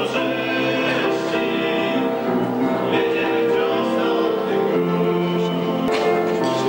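Music of slow held chords whose notes change about once a second, with no speech over it.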